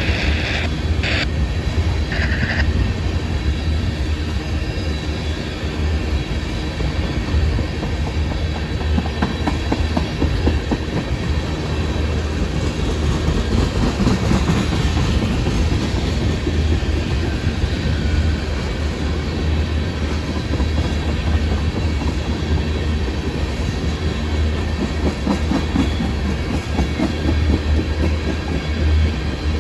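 Freight train of tank cars rolling past on the rails: a steady low rumble with the clickety-clack of wheels over the rail joints, and a few brief high wheel squeals near the start.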